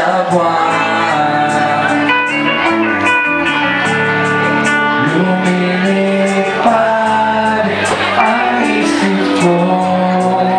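Live acoustic band performance: guitar accompaniment with a singing voice carrying a held, sustained melody.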